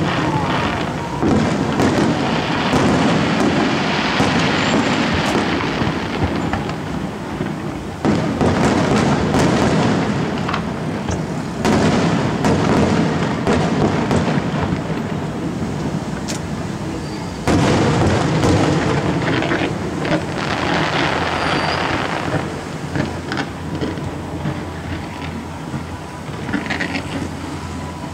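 Fireworks display: a dense, continuous barrage of booms and crackling, swelling sharply again about eight seconds in and again about seventeen seconds in.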